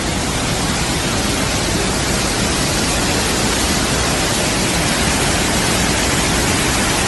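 Flash-flood water rushing down a street: a loud, steady rush of water noise.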